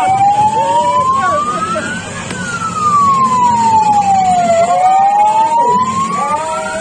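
Wailing siren of the fire-engine kind, a single tone sweeping slowly up and down, about two seconds rising and two falling, rising, falling, then rising again.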